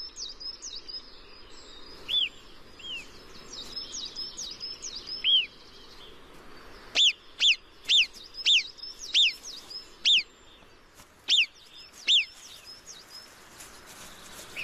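Alpine marmot alarm whistles: short, sharp, piercing calls, a few scattered at first, then a run of about eight, one every half second to a second, from about seven seconds in. They are the colony's alarm at a fox. Small birds chirp steadily underneath.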